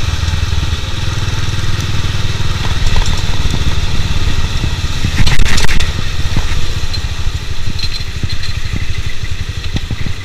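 Bajaj Pulsar 200 DTSI's single-cylinder engine running at low speed while the bike rides in slow city traffic, a steady pulsing rumble. About five seconds in there is a brief, louder rush of noise.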